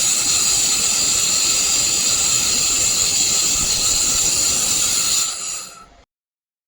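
Handheld fiber laser welding gun in operation: a loud, steady rush of gas hissing from the welding nozzle, with several high steady whistling tones over it. It fades and stops about five to six seconds in.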